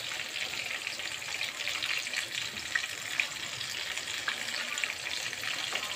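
Breaded beef slices deep-frying in hot oil in a pan: a steady sizzle with scattered small pops and crackles.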